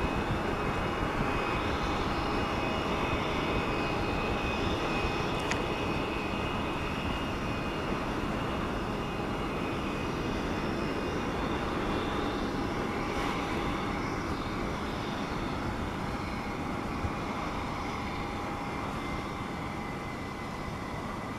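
Airbus A320 airliner's jet engines running at taxi power: a steady rush with high held whining tones, slowly growing fainter.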